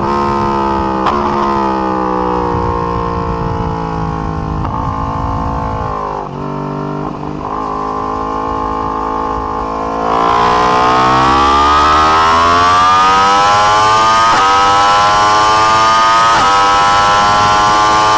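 2020 Yamaha YZF-R1 crossplane inline-four engine heard on board at a track: the revs drop in steps through downshifts on braking and run low through a corner. From about ten seconds in the engine pitch climbs hard under full acceleration, broken by quick upshifts about every two seconds.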